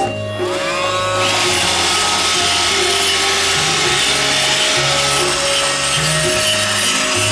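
iRobot Roomba 611 robot vacuum starting up: its motors spin up in a rising whine during the first second, then the brushes and vacuum motor run steadily. Background music plays underneath.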